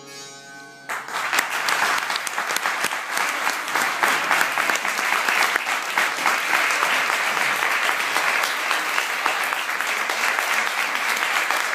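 The last struck notes of a santoor ring out and fade, then audience applause breaks out about a second in and carries on steadily.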